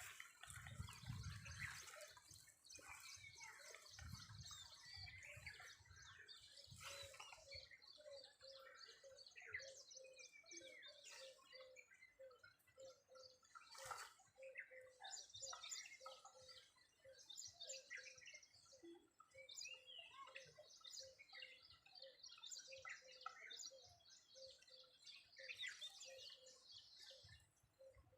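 Birdsong: many small birds chirping and trilling faintly over one another, with a low note repeated about twice a second from a few seconds in.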